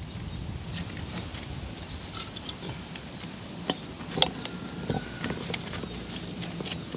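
Lumps of charcoal clinking and knocking together as they are arranged by hand in a coal pot to lay a fire, in scattered light clicks, the sharpest about four seconds in.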